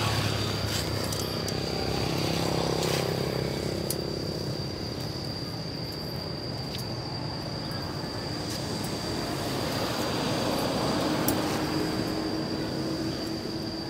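Road traffic passing close by: vehicles swell past twice, at the start and again near the end, over a steady thin high whine. A few sharp clinks of bricks knocking against the steel-bar cage come in between.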